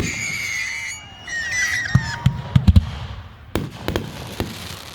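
Fireworks going off: high whistling tones in the first couple of seconds, then a quick run of sharp bangs around the middle and scattered crackling pops after them.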